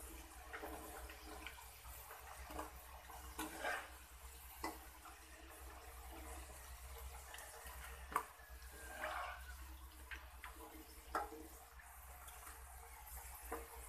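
Fries deep-frying in hot oil in a wok, the oil sizzling with scattered crackles. A metal slotted skimmer clicks and scrapes against the wok now and then as the fries are stirred and lifted out, over a steady low hum.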